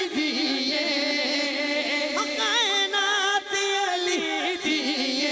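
Devotional singing of a Punjabi manqabat: a male voice draws out a wavering, ornamented line without clear words between refrains.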